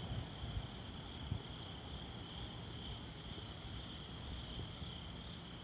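A steady, high chorus of night insects such as crickets, over a low rumble.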